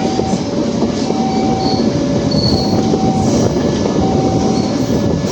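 A train running with a steady rumble of wheels on rail and a few brief high wheel squeals. Over it, a two-tone electronic warning alternates high and low, about one tone every three-quarters of a second.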